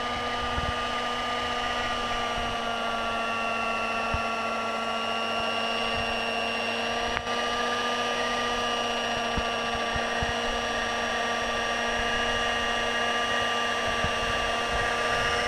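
Electric fabric cutting machine running steadily as it cuts through layers of scuba fabric, its motor giving a constant high whine with faint knocks beneath.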